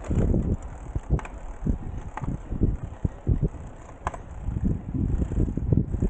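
Wind buffeting the microphone of a camera on a moving bicycle, gusting up and down, with a few sharp clicks or rattles from the bike about a second, two seconds and four seconds in.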